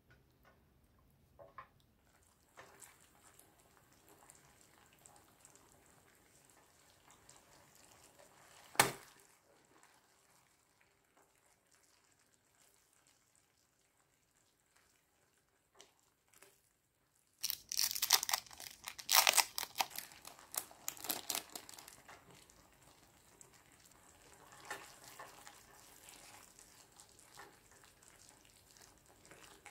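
A silicone spatula stirring a creamy mushroom sauce in a non-stick frying pan: soft stirring and scraping, with one sharp knock about nine seconds in. A near-silent stretch follows, then a louder spell of stirring from about seventeen to twenty-two seconds that tapers off.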